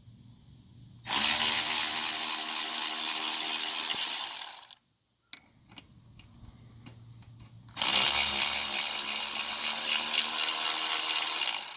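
A power tool runs twice, each time steadily for about three and a half seconds, with a few light clicks between the runs. It is backing out the 14 mm front brake caliper bolts of a 1982 Honda CB900 Custom.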